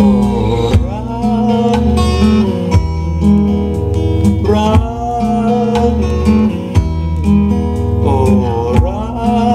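Music: a song's instrumental passage with strummed acoustic guitar over a steady bass line, and a lead melody that slides up into long held notes every couple of seconds.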